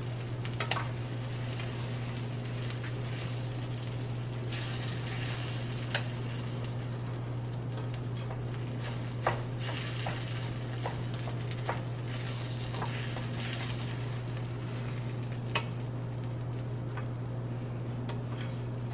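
Rice and tomato sauce sizzling in hot oil in a pan, with a spoon now and then clicking and scraping against the pot as it is stirred. A steady low hum runs underneath.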